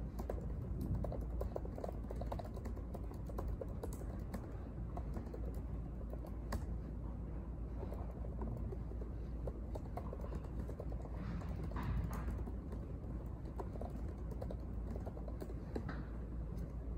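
Typing on a MacBook's laptop keyboard: irregular soft key clicks in quick runs, over a steady low hum of room noise.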